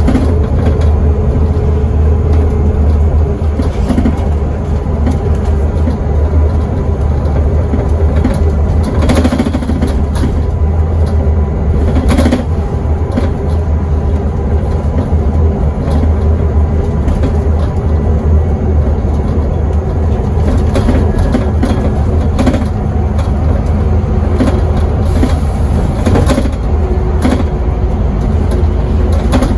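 Scania N270UD double-decker bus under way, heard from inside the upper deck: its nine-litre five-cylinder diesel runs at a steady pace with a deep drone and a steady hum, and the body gives short knocks and rattles now and then.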